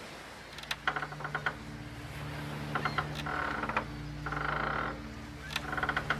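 Repeated short creaks of a wooden sailing ship's rigging and timbers, each a quick run of rapid clicks, over a low steady music drone that comes in about half a second in.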